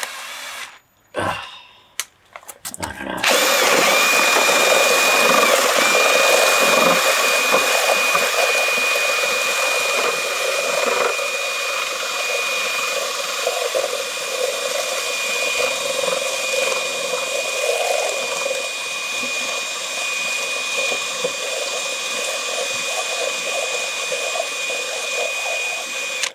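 Electric drill with a paddle mixer attachment stirring a wet cement mix in a plastic tub. After a few short blips it starts up about three seconds in and runs steadily with a high motor whine over the churning of the watery mix.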